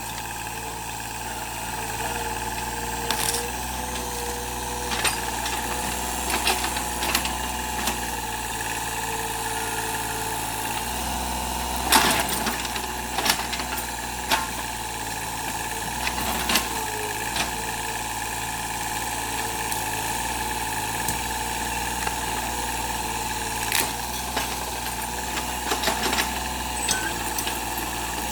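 An engine running steadily, with scattered sharp knocks and clanks; the loudest knock comes about twelve seconds in.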